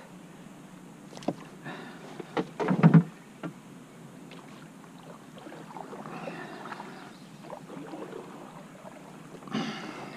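Knocks and rattles of handling inside a canoe, with a louder clatter against the hull about three seconds in.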